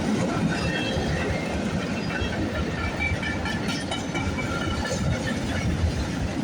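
Freight train passing: a steady rumble and clatter of its wheels on the rails, with faint short squeals.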